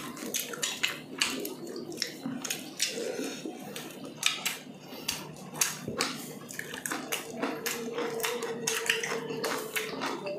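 Close-miked eating sounds from grilled chicken inasal eaten by hand: chewing and lip smacking, with many sharp clicks at irregular intervals.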